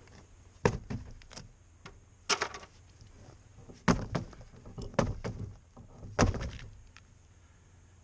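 A car tire mounted on its rim, dropped and bounced on the ground five times, each drop a dull thud about every second and a half. The bouncing is meant to work the beads out against the rim so they seal and the tire takes air.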